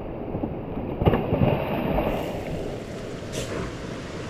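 River water rushing and splashing, with a louder spell of splashing about a second in.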